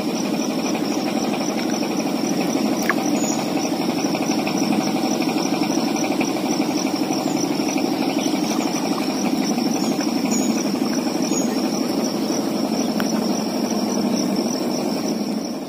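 A small engine running steadily, a constant drone that fades out near the end.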